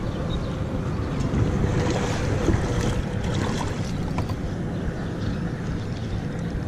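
Steady wind noise on the microphone, with water lapping around a plastic kayak and a few light clicks from handling gear aboard.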